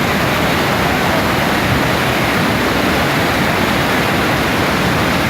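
Steady, loud rushing of water, an even noise with no breaks.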